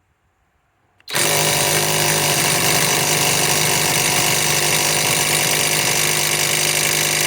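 Flex FX1451 mid-torque cordless impact wrench hammering steadily on a hitch ball nut, starting about a second in, without breaking the nut loose.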